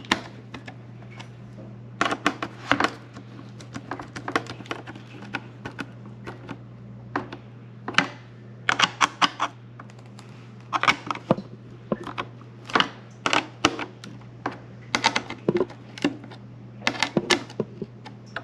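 Hand nut driver turning small screws that fasten a dishwasher control board into its plastic housing, making short runs of sharp clicks every second or two. A steady low hum sits underneath.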